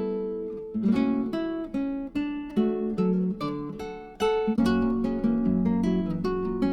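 Background music: acoustic guitar picking a melody, with plucked notes that ring and fade.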